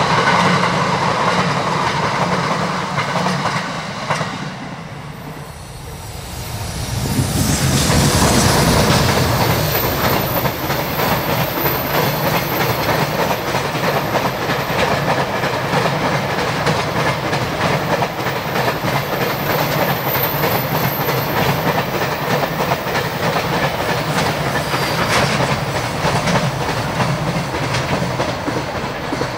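A JR Freight container train hauled by an EH500 electric locomotive passing close by, its wagons' wheels clattering steadily and rapidly over the rail joints. At the start, an E531-series electric multiple unit passes and its sound dies away, before the freight train's noise rises about seven seconds in.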